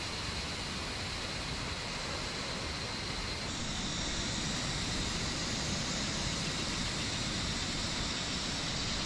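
Portable butane camping stove burner hissing steadily under a pot of coffee; about three and a half seconds in the hiss turns brighter and a little louder.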